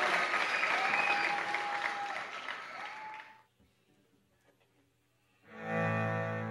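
Audience applause that dies away after about three seconds, then a short hush. Near the end a cello begins a low bowed note.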